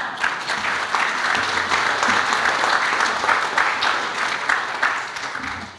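Audience applauding, with many hands clapping together; the clapping thins out toward the end.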